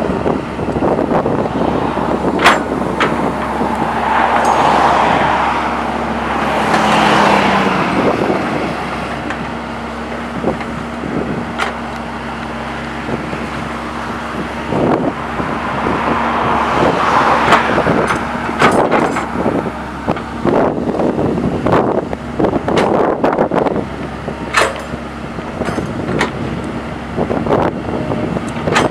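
Sumitomo hydraulic excavator's diesel engine running steadily under digging load, with the bucket knocking and scraping through wet soil in many sharp clunks. Two longer swells of rushing noise rise and fade, once early on and again past the middle.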